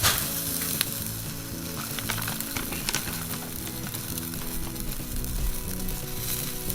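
Chicken-skin skewers sizzling over a charcoal fire, with a steady hiss and scattered sharp crackles.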